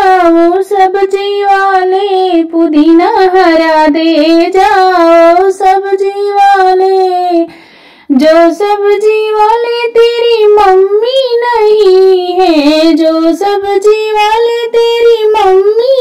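A woman singing a Hindi folk song solo in a high voice, with no accompaniment, pausing briefly for breath about halfway through.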